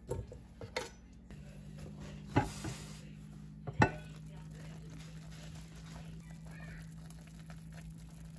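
Kitchen handling sounds: a few light knocks, then the glass lid of a slow cooker knocked and clinked sharply twice as it is lifted off, over a steady low hum.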